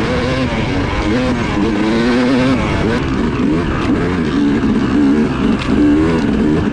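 Yamaha YZ250X two-stroke dirt bike engine running on a trail ride, its pitch rising and falling again and again as the throttle is worked.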